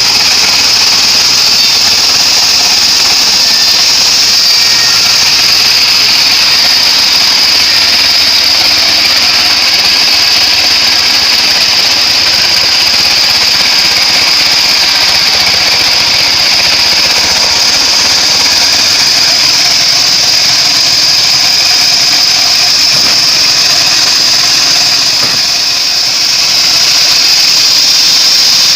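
Homemade bandsaw sawmill running steadily while sawing acacia wood: a loud, even mechanical noise with a strong high whine, dipping slightly about 25 seconds in.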